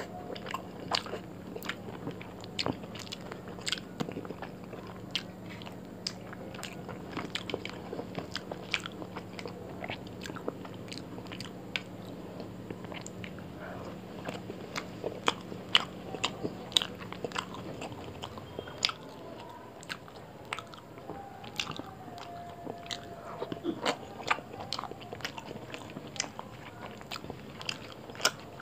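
Close-miked eating sounds: a man biting and chewing pieces of spicy chicken curry, with frequent sharp wet clicks, smacks and some crunching.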